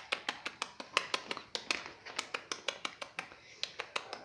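Quick, irregular run of sharp clicks and scratches, about four or five a second, from two six-week-old puppies wrestling and play-biting on a raised fabric pet cot.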